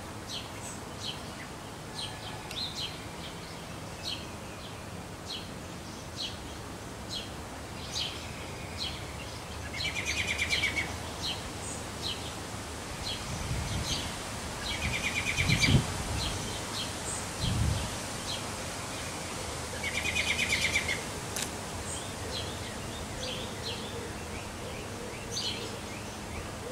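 Birds chirping and calling in short notes throughout, with three buzzy trills of about a second each, roughly ten, fifteen and twenty seconds in. A few low thumps come near the middle.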